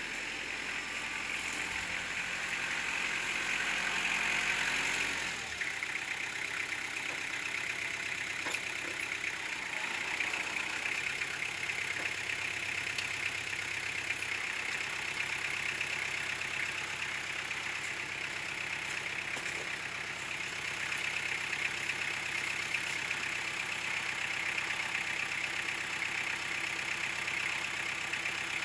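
Kubota L4600 tractor's three-cylinder diesel engine running steadily while the BH92 backhoe's hydraulics work to pick up a log. It is a little louder about four to five seconds in, then settles.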